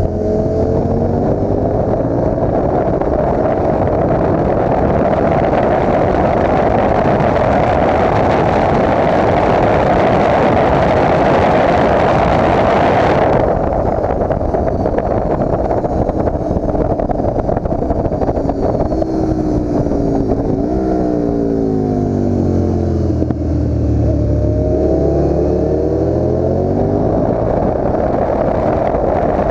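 KTM Duke motorcycle engine running hard at high revs, heard from on the bike, with heavy wind rush on the microphone that cuts off suddenly about halfway through. Later the engine's pitch falls and then climbs again as the bike slows for a corner and accelerates back out.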